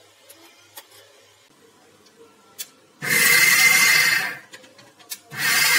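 Electric mixer grinder grinding soaked urad dal and spices to a coarse paste, run in short pulses: a loud burst with a steady motor whine about three seconds in that winds down after a second or so, then starts again near the end.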